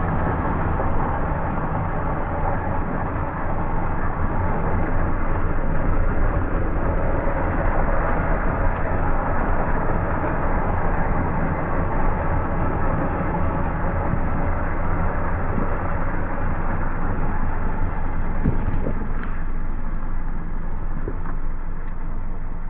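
Steady low mechanical running noise, like a vehicle's, with a few faint clicks.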